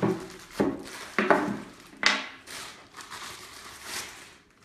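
Clear plastic packaging crinkling and rustling as it is handled, in about half a dozen short bursts.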